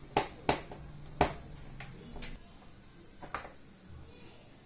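Sharp plastic clicks and taps from the back cover of an LED TV being fastened and pressed along its edge by hand and screwdriver: three loud clicks in the first second and a half, then a few fainter ones.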